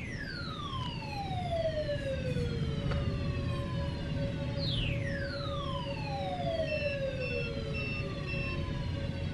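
A siren wail sweeping steadily down in pitch, starting again about every five seconds, over a steady tone and a low rumble. Four short electronic beeps from a computer's UPS battery backup sound near the end.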